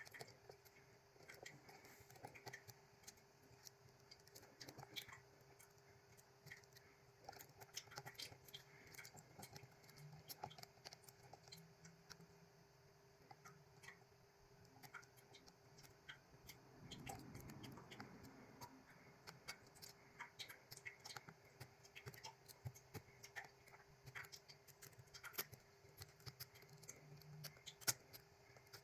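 Faint, irregular ticks and scratches of a lock pick working the pins of a GOAL D9 lock, setting them again after the back pin was overset. A faint steady hum lies underneath.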